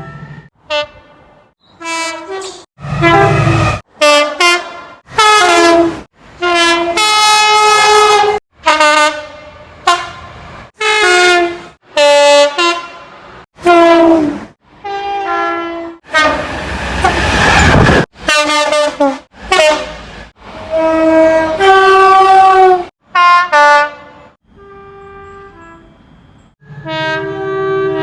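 A rapid run of British railway locomotive and multiple-unit horn blasts, many short soundings of differing pitch cut one straight after another. A burst of rushing noise fills about two seconds in the middle.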